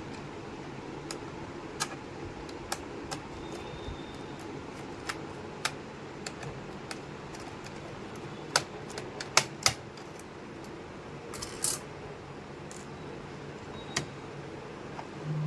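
Irregular sharp clicks and taps of small hard parts being handled during laptop repair work, the loudest cluster about two-thirds of the way in, over a steady low hum.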